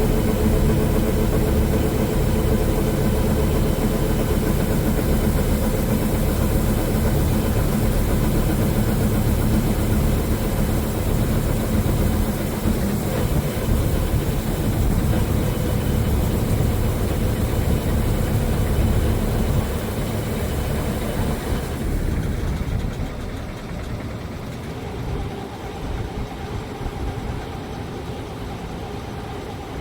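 Engine of 1980-era farm machinery running steadily. About twenty seconds in it gets quieter, and soon after the high hiss drops out abruptly, leaving a lower, softer engine sound.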